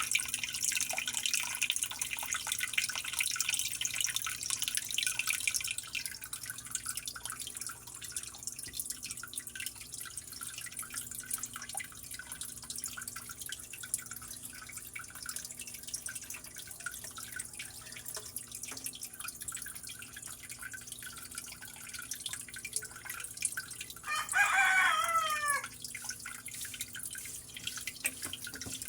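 Water trickling and dripping with many small clicks throughout, over a high hiss that fades after the first few seconds. A rooster crows once, about 24 seconds in, and this is the loudest sound.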